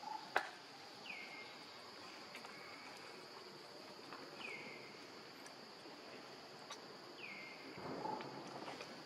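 Steady high drone of insects, with a bird call heard three times about three seconds apart, each sliding down in pitch and then holding briefly. A single sharp click sounds shortly after the start.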